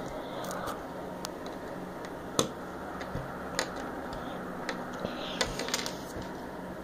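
Plastic LEGO Technic pieces clicking and tapping as they are handled and fitted together: scattered sharp clicks, the loudest about two and a half seconds in, over a steady low hiss.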